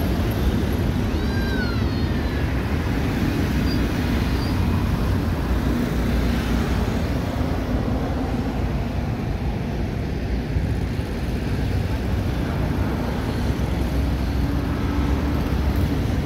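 Steady low rumble of a jet airliner that has just landed and is rolling out on the runway, with a short high-pitched call about a second in.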